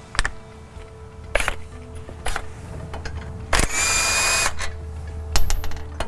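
A cordless impact wrench runs for about a second on a brake caliper carrier bolt, a little past the middle. Several sharp metallic clicks and clinks of tool handling come before and after it.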